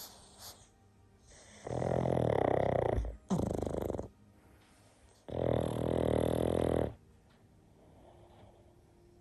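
Pug snoring in its sleep: a long snore about two seconds in, broken briefly near its end, and another about five seconds in, each one to two seconds long, with quiet breathing between.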